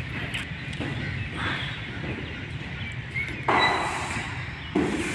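Floor squeegee being pushed over a wet marble floor: a few sudden swishing strokes, the loudest two near the end, over a steady low hum.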